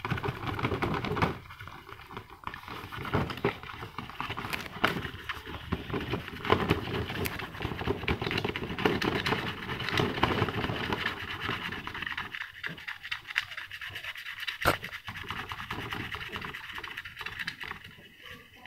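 A fingertip rubbing rapidly back and forth over the glossy clear coat of a plastic model car body, buffing it with coarse polishing compound: a continuous scratchy rubbing that thins out and gets quieter about two-thirds of the way through.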